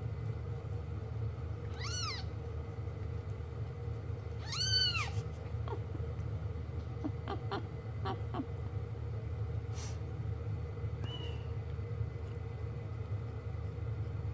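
Bengal kittens a few days old mewing: two short, high-pitched mews that rise and fall, about two seconds in and about five seconds in, the second louder. A few faint clicks and a small chirp follow, over a steady low hum.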